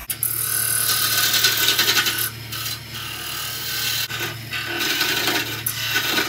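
A turning tool cutting into spinning chokecherry wood on a lathe, a loud continuous scraping hiss of the cut that drops out briefly a few times, over the steady hum of the lathe motor. It is the parting-off cut, undercutting the goblet's base where it joins the waste block.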